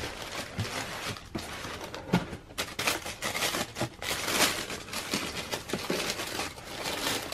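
Thin wrapping paper crinkling and rustling in irregular bursts as hands fold it back from inside a cardboard shoebox.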